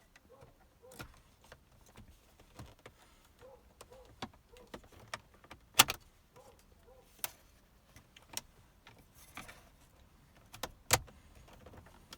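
Plastic trim of an Audi A6/A7 C7 rear armrest cupholder being handled and pressed into place: scattered light clicks and rattles, with two sharper snaps, one about six seconds in and one near the end.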